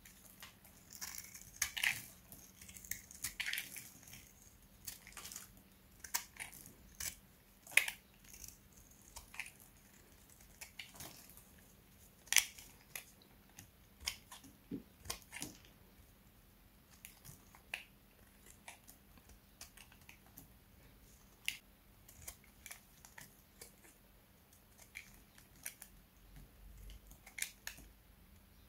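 Dry, hard soap crunching and cracking in irregular crisp snaps. The snaps come thick and fast for the first several seconds, then more sparsely with short pauses.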